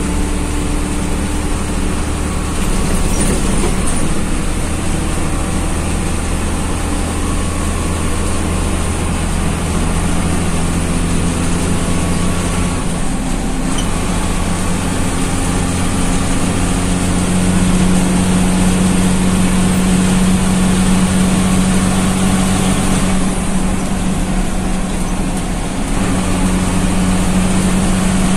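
Bus engine running and road noise heard inside the cabin while the bus drives along, a steady hum with the engine note shifting in pitch a few times.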